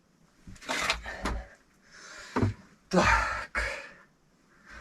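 Metal stove oven box being handled and set into place on brickwork: a few loud clunks and scrapes of metal on brick.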